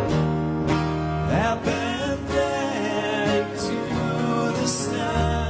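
Two acoustic guitars, one a Gibson Hummingbird, played together in a slow unplugged rock song, strummed chords ringing over one another.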